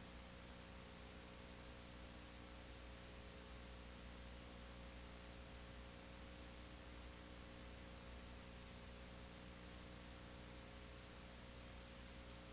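Near silence: a faint steady hiss with a low mains hum and no other sound.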